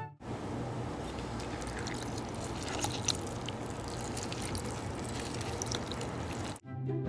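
Water running steadily, with a few faint light clicks about halfway through.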